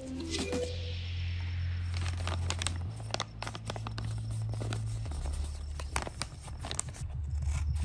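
A sheet of printed paper rustling and crinkling as hands pick it up and handle it, with many small clicks. Under it runs a low steady background-music note that shifts pitch twice.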